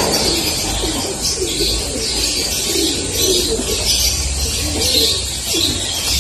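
A flock of racing pigeons cooing in their loft, many overlapping throaty coos repeating one after another.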